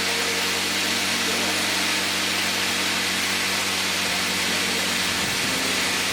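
Caldwell CUT 70 GC MAX plasma cutter with a built-in compressor, running: a steady hiss with a low hum under it.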